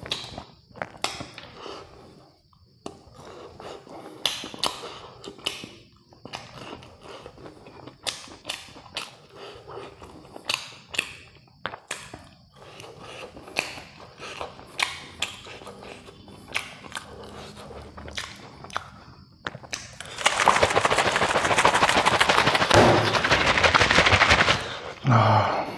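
Close-miked eating sounds: crispy fried chicken crunching and chewing in irregular sharp bites. Near the end come about four seconds of louder, dense crackling.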